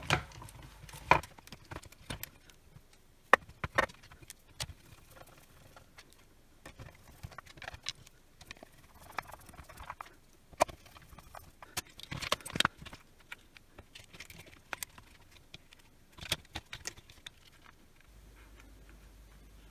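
Plastic housing parts of a cordless circular saw being handled and fitted together over the motor, with a screwdriver in use: irregular clicks and knocks of plastic and small metal parts, some in quick clusters.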